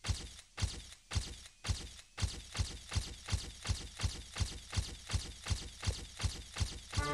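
Intro sound effect: a steady pulse of sharp percussive hits, about two a second, each with a short decaying tail.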